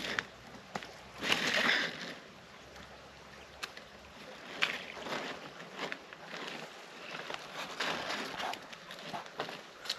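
A folding boat's ribbed hull being stood up and unfolded by hand: irregular knocks, clicks and rustles of the panels flexing and shifting, with a louder scraping rustle about a second in.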